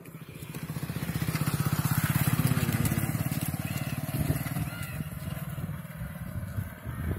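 A motorcycle engine passes close by. It grows louder over the first two seconds, then fades slowly as the bike rides on ahead.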